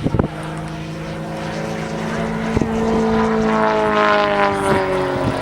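Propeller-driven aircraft flying past, its engine note growing louder and then sliding down in pitch as it goes by. A few sharp clicks come right at the start.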